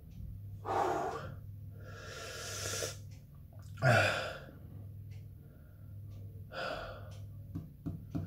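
A man's heavy breaths and gasps, with one loud voiced gasp with a falling pitch about four seconds in: he is in pain from the burn and stomach cramps after chugging extreme hot sauces.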